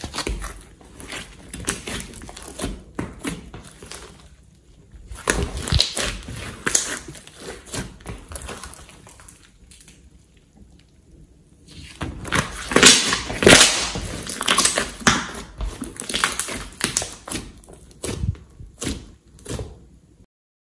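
Thick green slime being stretched, pressed and poked by hand: sticky squishing with many small clicks and pops in irregular bursts, separated by short quieter pauses. It stops suddenly near the end.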